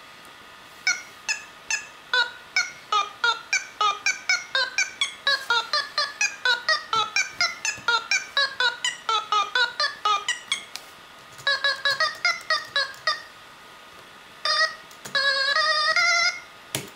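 A sampled clip of a man's singing voice played note by note on a laptop video-sampler synth from the computer keyboard. Fast runs of short pitched notes, about three or four a second, climb and fall, then a few chords and longer held notes come near the end.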